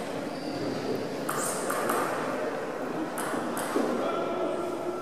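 Table tennis ball clicking sharply as it bounces and is struck with paddles, a handful of separate hits spaced irregularly.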